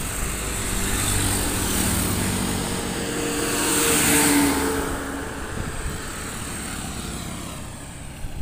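Trucks driving past close by on a highway: engine hum and tyre noise build to a peak as a large cargo truck passes about four seconds in, then fade away.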